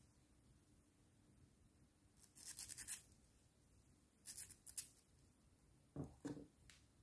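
Fingers rubbing and squeezing glitter-coated foam balls from a slime, giving two short crackly bursts, then two soft squelches near the end as the hands press into the slime.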